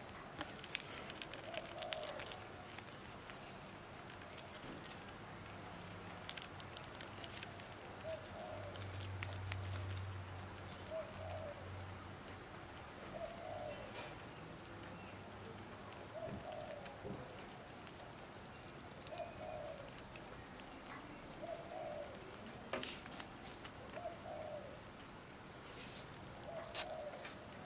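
A pigeon cooing over and over in the background, one coo every couple of seconds. Close by, a pet rat chews a moth with sharp crunching clicks, loudest in the first few seconds and again near the end. A low hum comes in for a few seconds in the middle.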